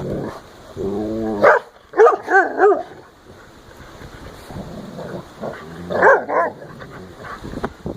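Dogs at play on grass, one giving short, high, pitched yips and barks: a single call about a second in, a quick run of three yips about two seconds in, and two more around six seconds. Low rustling lies underneath.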